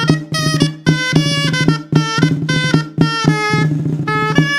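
Instrumental dance music: a melody of short pitched notes over a held low note and a steady drum beat.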